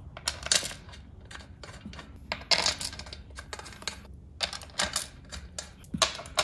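Steel beadlock-ring bolts clinking and tapping as they are set into the ring's holes and started by hand: a string of irregular small metallic clicks, a little louder about two and a half seconds in and near the end.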